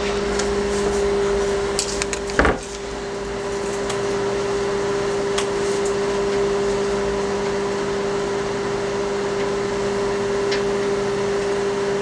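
Microwave oven running with a steady hum, its contents heating. A single sharp knock about two and a half seconds in.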